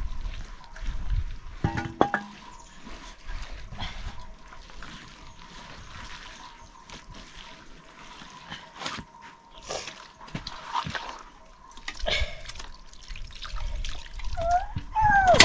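Wet hand-smearing of a mud-and-cow-dung plaster over an earthen floor: scattered squelchy dabs, slaps and drips. A short gliding squeal comes near the end.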